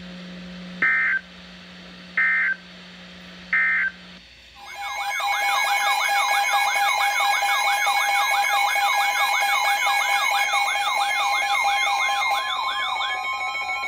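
Emergency Alert System broadcast audio: three short bursts of screeching digital data tones, the end-of-message code after a weather warning, then from about four seconds in a loud electronic alert tone that warbles up and down about three times a second over steady tones. Near the end the warble gives way to a steady tone with a slow rising glide.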